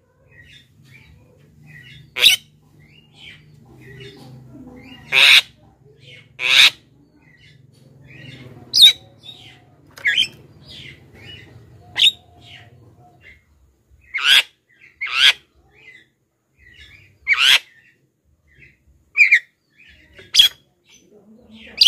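Javan myna calling: a run of about eleven short, loud, harsh calls a second or two apart, with softer chattering notes in between.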